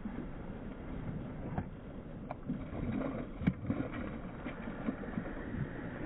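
Hooked snook thrashing and splashing at the surface beside a kayak, muffled, with a few sharp knocks and splashes, the loudest about three and a half seconds in.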